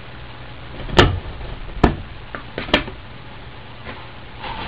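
Three sharp knocks or taps about a second apart, with a couple of fainter ticks between them.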